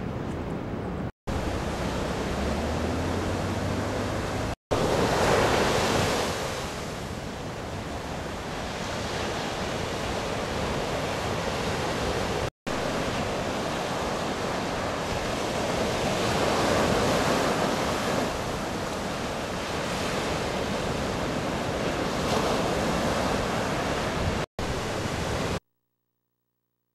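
Ocean surf: a steady rush of breaking waves that swells louder around five seconds in. It cuts out briefly several times and stops abruptly near the end.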